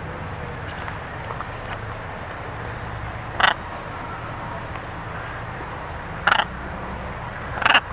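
Blue-and-yellow macaws giving three short, harsh squawks, about three and a half, six and a quarter, and seven and three-quarter seconds in, over a steady low hum.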